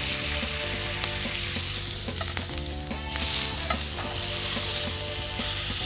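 Contra filé (striploin) steak sizzling steadily in a very hot frying pan as its fat edge is seared against the pan, with a few faint clicks.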